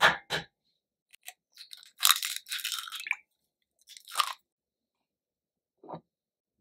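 An egg knocked twice on a wooden tabletop, then the shell crackling as fingers pull it apart, with a second short crackle a little later. Near the end a soft knock, a small glass bowl set down on the wooden table.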